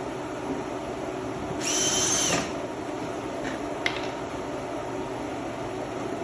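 Cordless screw gun driving a wood screw: one short burst of motor whine about a second and a half in, another starting right at the end, with a single sharp click between them.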